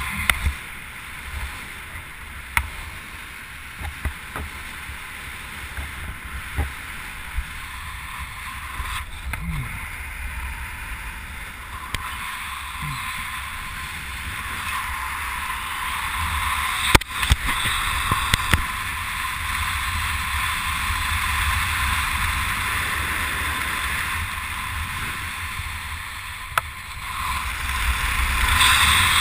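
Wind rushing and buffeting over the camera's microphone while descending under an open parachute. It grows louder about halfway through and again near the end, with a few sharp knocks.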